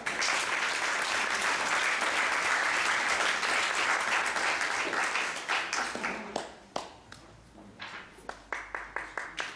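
Audience applauding: dense clapping for about six seconds, then thinning out to a few scattered hand claps.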